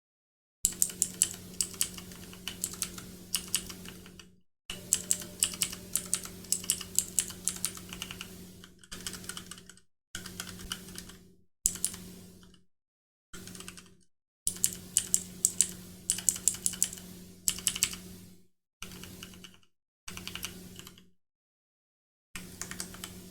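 Redragon Kumara K552 mechanical keyboard being typed on in bursts of rapid key clicks, the board fitted with Outemu Brown switches and Outemu Blue switches on the W, A and D keys. A low steady hum sits under each burst, and the sound cuts to silence between bursts.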